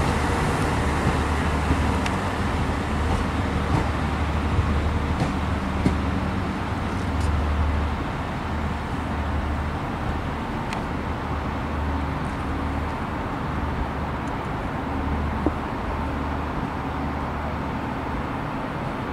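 Northern Ireland Railways 3000 Class diesel multiple unit's engines running, a steady low rumble that eases slightly about eight seconds in, with a few faint clicks.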